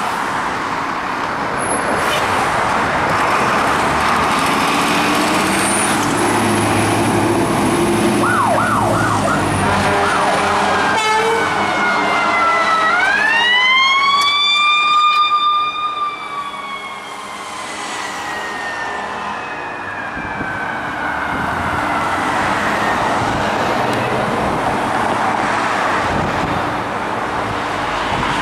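Fire engine responding in traffic: engine and road noise, a brief fast warbling siren burst about eight seconds in, then a siren winding up to a high wail around twelve seconds in and slowly winding down over the next ten seconds.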